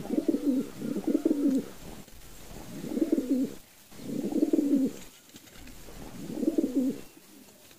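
Fantail pigeons cooing: a run of low, throaty coo phrases, each under a second long, coming about every second and a half.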